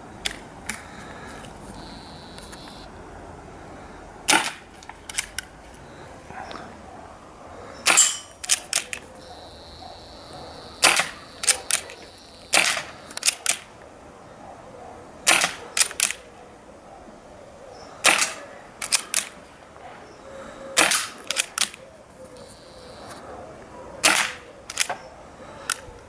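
SMK CP2 Victory CO2 multi-shot air pistol, fitted with a silencer, firing about eight shots a few seconds apart. Each shot is a sharp crack followed by two or three quieter clicks as the bolt is worked to load the next pellet.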